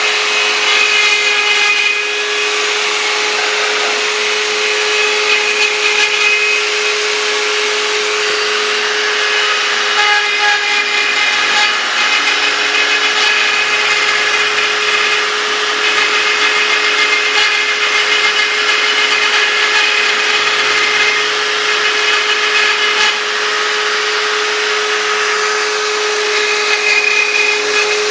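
CNC router spindle running with a steady whine while its bit mills lettering. The higher cutting tones shift and come and go as the tool moves through the strokes.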